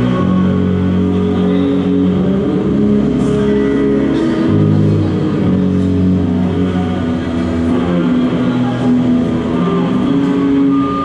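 Electric guitars played loud through small amplifiers, holding long ringing chords that change every second or so.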